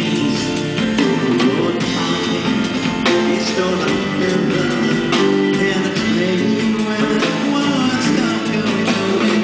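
Live band music led by guitar, playing an instrumental passage without singing.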